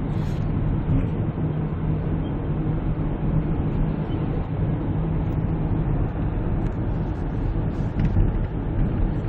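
Kia Grand Carnival minivan cruising at road speed, heard from inside the cabin: a steady low engine drone under even tyre and road noise.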